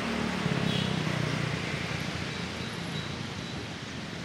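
Street traffic noise: a steady rumble of passing vehicles, heaviest in the first second or two and easing a little, with a few faint high chirps.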